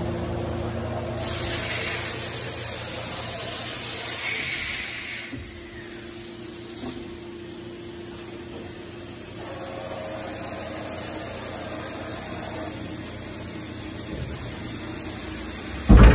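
A hiss of air starts about a second in and stops about four seconds later, over a steady low mechanical hum. A loud thump comes right at the end.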